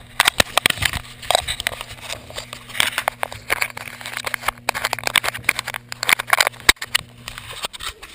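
Dense, irregular scraping and knocking from a GoPro camera strapped to a Boston terrier's head, the housing and strap rubbing and bumping as the dog moves about. A steady low hum sits underneath and stops shortly before the end.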